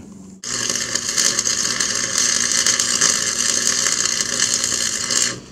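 Wire-feed welder crackling steadily as it lays a short bead on a steel steering extension of a riding mower. It starts about half a second in and stops just before the end.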